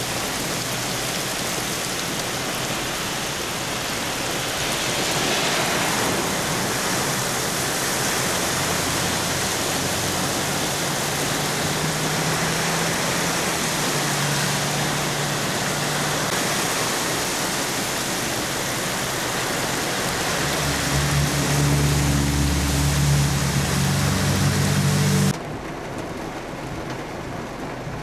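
Heavy rain pouring onto a flooded street while cars drive through the standing water, their tyres throwing up spray. A car swishes past about five seconds in, and a low engine hum grows loudest shortly before the sound drops to quieter steady rain near the end.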